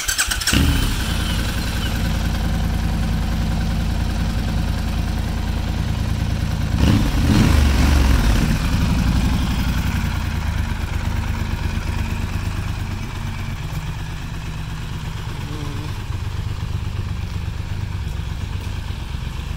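Triumph Scrambler 1200 XE's 1200 cc parallel-twin engine starting and then idling. About seven seconds in, a throttle blip rises and falls back over a couple of seconds. The idle then settles slightly lower.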